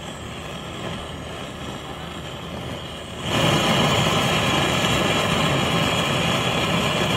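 Handheld gas torch flame hissing steadily, getting markedly louder about three seconds in as it is turned up to a hard blue jet, heating a copper cable lug to melt solder into it. Cuts off suddenly at the end.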